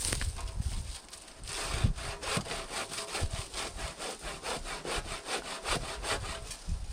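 Handsaw cutting through a small green spruce log, in a quick, steady run of back-and-forth strokes.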